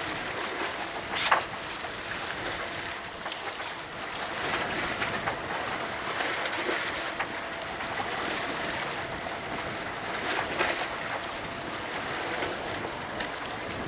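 Choppy sea water washing around a small boat, with wind buffeting the microphone and swelling louder a few times, and a single sharp knock about a second in.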